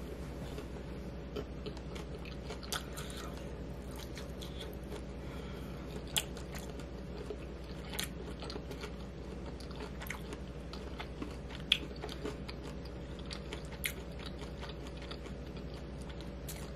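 A person chewing a bite of battered honey walnut shrimp with walnuts: soft, irregular crunches and mouth clicks every second or two, over a steady low hum.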